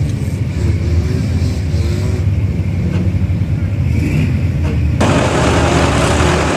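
Diesel engine of a Komatsu hydraulic excavator running steadily with a deep rumble while it holds a pickup up on its bucket. About five seconds in, the rumble gives way abruptly to a hissier, higher-pitched rush of noise.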